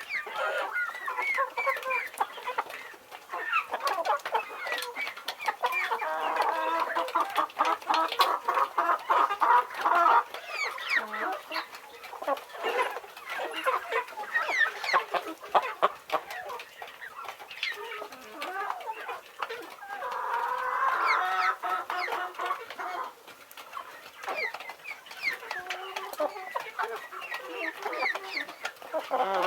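A flock of farm chickens clucking continuously, many overlapping short calls, swelling louder twice, about a quarter of the way in and again about two-thirds of the way in.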